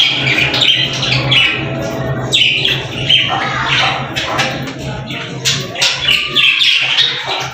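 A group of budgerigars chirping and chattering, a dense, continuous run of short, high chirps and squawks.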